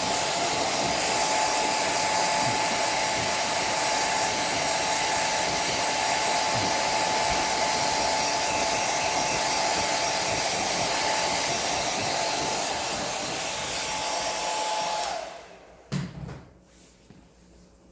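Hair dryer blowing steadily with a thin whine, switched off about 15 seconds in, followed by a short knock.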